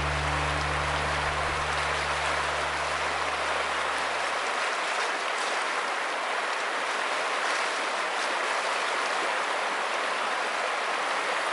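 Fast river water rushing over rocks in a shallow riffle, a steady even rush close to the microphone. A low held music chord underneath fades out about four seconds in.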